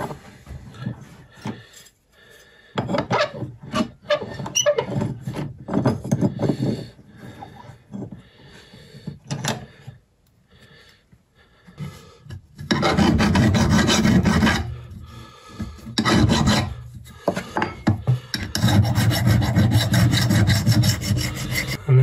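A hand file sharpening a Lumag HC10 woodchipper blade clamped in a bench vise. The first half holds scattered clicks and short scrapes of the steel blade being handled and set in the vise. A little past halfway come three long spells of steady rasping file strokes.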